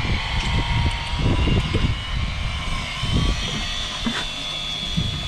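Wind buffeting the microphone in irregular gusts, with a faint steady high-pitched whine underneath.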